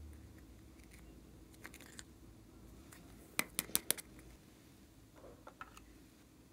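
Small plastic toys and containers being handled and set down by hand: a quick run of about five sharp clicks about three and a half seconds in, with a few fainter taps before and after.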